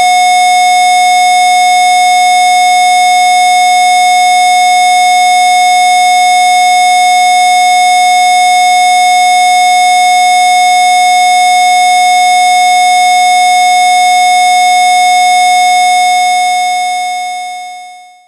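A single steady, loud electronic sine tone a little above 700 Hz, one of the generated Rife frequencies, holding one pitch and fading out over the last two seconds.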